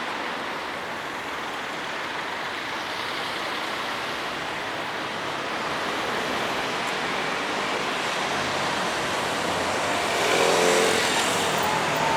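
Road traffic noise: a car driving past, its tyre and engine noise growing louder and at its loudest about ten seconds in.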